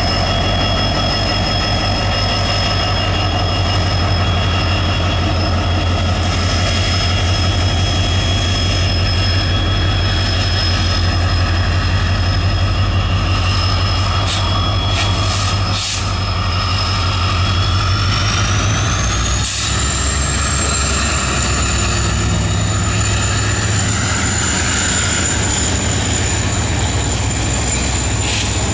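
Diesel locomotive engine running under power as it pulls a passenger train out of the station, a deep pulsing drone with a high whine that rises in pitch about two-thirds of the way through.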